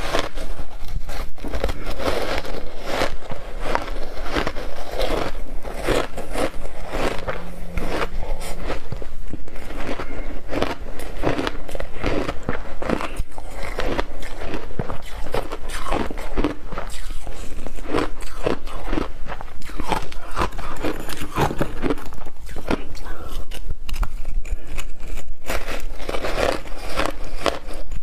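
Ice chunks coated in matcha and milk powder being bitten and chewed close to a clip-on microphone: a steady run of hard, irregular cracks and crunches.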